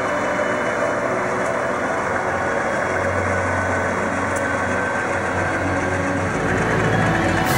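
Diesel locomotives at the head of a freight train passing close by, their engines running steadily. The low rumble grows louder and deeper about six seconds in, as another locomotive comes alongside.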